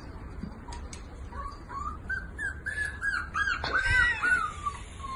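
Dachshund puppy whimpering: a run of short, high whines, one after another, starting about a second and a half in.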